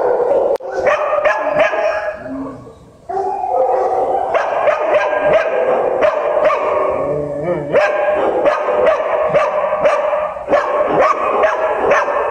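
Many shelter dogs barking at once, with long held howling notes under the barks. There is a short lull about two seconds in, then the barking picks up again.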